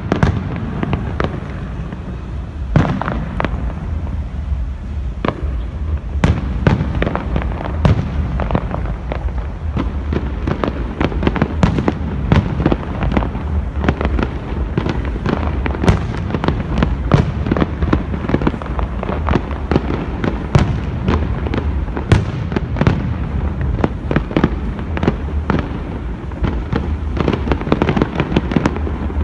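Aerial fireworks display: firework shells bursting in quick, irregular succession, many sharp bangs and booms a second, over a steady low rumble.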